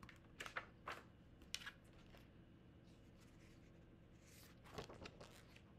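Faint rustles and taps of a hardcover picture book being handled and opened, its cover and pages turning, with a small cluster of rustles about four to five seconds in.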